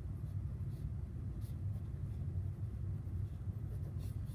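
A pen writing on workbook paper: faint, short scratching strokes over a steady low hum.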